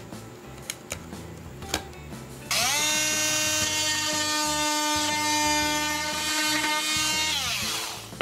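An oscillating multi-tool starts about two and a half seconds in and runs steadily with a high, buzzing whine while its blade cuts the top off the tongue of a hinoki floorboard. Near the end its pitch falls away as it winds down. Before it starts there are a few light handling clicks.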